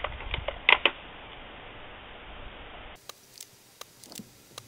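Bolt of a UTG L96 spring-powered bolt-action airsoft sniper rifle being worked: a few sharp clicks in the first second, the two loudest close together just under a second in.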